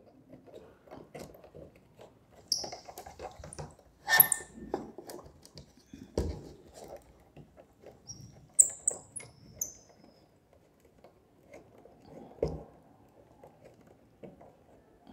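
Hands fitting a connecting wire into a galvanometer's binding-post terminal: scattered small clicks and rustles of wire and metal. There are two louder knocks, about six and twelve seconds in, and a few brief high squeaks a little past the middle.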